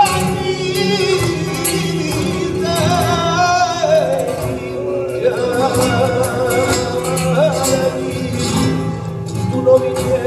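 Live flamenco: a singer's wavering, ornamented cante over two flamenco guitars, with sharp percussive taps from the cajón and the dancers' footwork.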